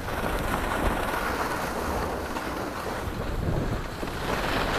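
Wind rushing over the microphone of an action camera carried downhill, mixed with the steady hiss of sliding over packed snow.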